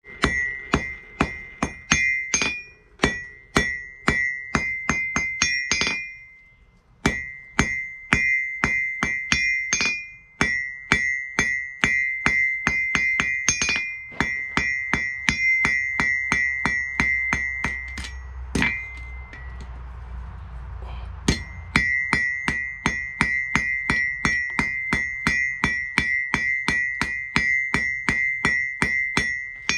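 Hand hammer striking hot steel on a steel anvil in a steady run of blows, about two and a half a second, each leaving a loud high ring; the anvil rings this much because it is not yet damped on its stand. The hammering pauses briefly about six seconds in and stops for a couple of seconds past the middle.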